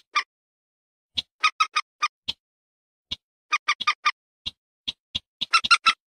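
Common moorhen and barred rail calls from a bird-lure recording: short, sharp notes, some single and some in quick runs of three to five, quickening into a fast string near the end.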